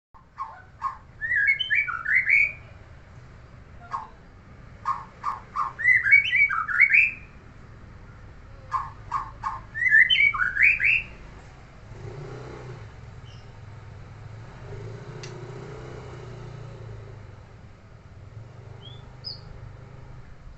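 A kept songbird sings three loud phrases about four seconds apart. Each starts with a few short clipped notes and runs into a quick rising and falling warble. After that a low steady hum continues, with a couple of faint chirps near the end.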